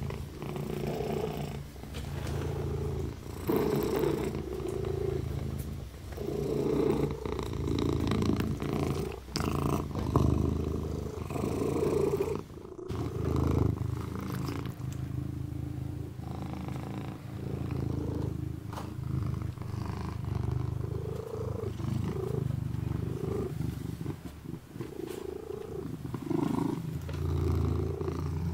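Kitten purring, the low purr swelling and easing every second or two in time with its breathing, with small wet licking clicks as it grooms its paw.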